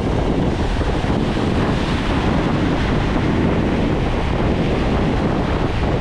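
Atlantic surf breaking and foam washing up over the sand, with wind buffeting the microphone.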